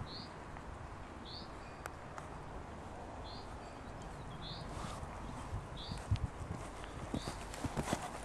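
Hoofbeats of a cantering horse on a sand arena surface, dull thuds that are faint at first and grow clearer and more frequent in the second half as the horse comes closer.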